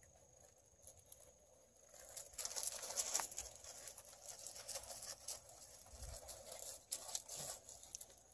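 Jindo puppies' paws scrabbling and crunching on loose gravel as they wrestle. It is a dense run of small scuffs and clicks, busiest from about two seconds in.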